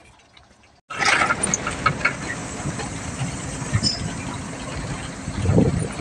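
Faint for about the first second, then a crane truck's engine starts being heard suddenly, running loud and rough with frequent knocks and rattles.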